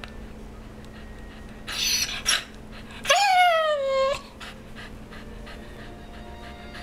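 Pet dog vocalizing: two short breathy huffs about two seconds in, then one drawn-out whining call, about a second long, that rises briefly and slides down in pitch, the dog's 'talking' voice.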